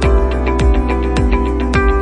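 Background music with a steady beat: sustained chords over a bass drum hit about every half second.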